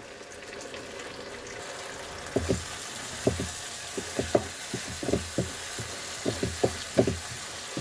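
Masala sizzling in oil in a nonstick frying pan, with fresh yogurt just added. About two seconds in, a wooden spatula starts stirring the yogurt in, knocking and scraping against the pan two or three times a second.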